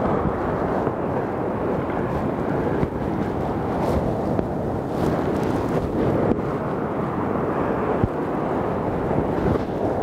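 High waves crashing and washing over rocks in steady surf, with wind buffeting the microphone.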